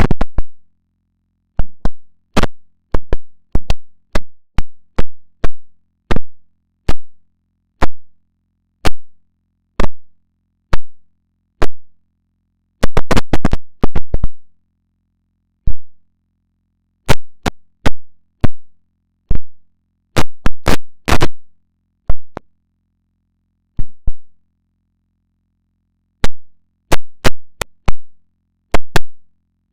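Loud, sharp digital clicks and pops from heavily processed, distorted audio: single clicks about a second apart, dense clusters about 13 s and 20 s in, and silent gaps between.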